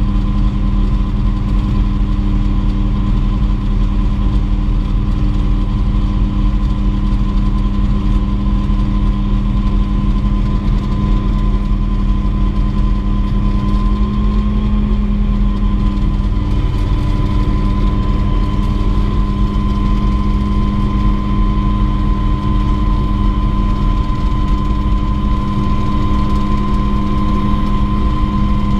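Mosquito ultralight helicopter's turbine engine and rotor running steadily, a loud low rumble under a steady whine that rises a little in pitch about halfway through before settling.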